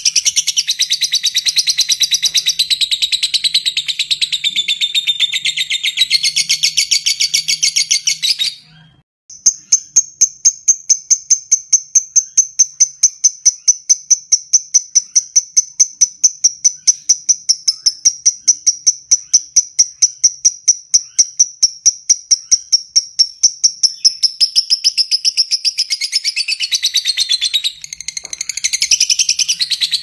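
Fischer's lovebird singing its long ngekek, the rattling chatter song prized by keepers. Dense, rapid high chatter breaks off briefly about nine seconds in, then becomes a long, even run of quick repeated notes at about five a second. Near the end it loosens back into mixed chatter.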